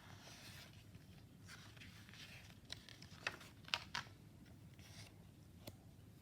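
Pages of a picture book being handled and turned: faint paper rustling with a few light clicks, the sharpest about three and a half to four seconds in.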